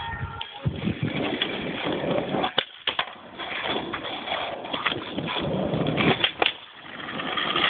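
Skateboard wheels rolling with a rough noise over asphalt, broken by sharp wooden clacks of the board popping and slapping down: a pair of clacks a little past two and a half seconds in, and the loudest ones about six seconds in as the board comes loose on an ollie and hits the ground.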